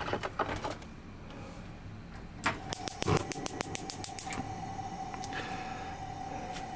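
Gas stove burner being lit: a few clicks, then the spark igniter ticks rapidly for about two seconds while the flame catches. The lit burner then runs with a steady hiss and a faint steady tone.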